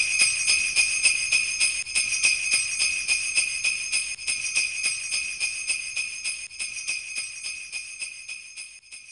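Jingle bells shaken in a steady rhythm, about four shakes a second, ringing bright and high, then slowly fading out near the end.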